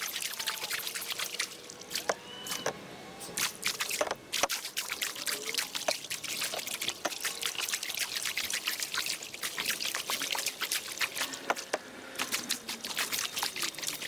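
Water dripping and trickling off a kayak paddle into a calm river: a dense, continuous patter of drips and small splashes.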